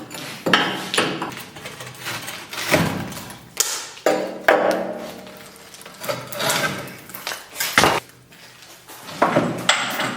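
Demolition work by hand: irregular heavy hammer blows and crashes, about a dozen strikes with short ringing and clatter after several of them, as material is broken out.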